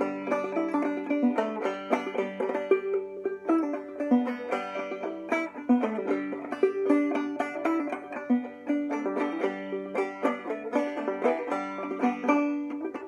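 A 1909 Tubaphone open-back banjo played clawhammer style: a continuous run of plucked, ringing notes in an even, lively rhythm.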